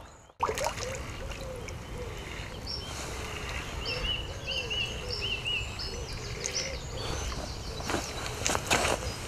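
A hooked tench splashing at the surface while a fishing reel is wound in, over steady outdoor background noise. There are a few short high chirps in the middle and several sharp splashes or knocks near the end.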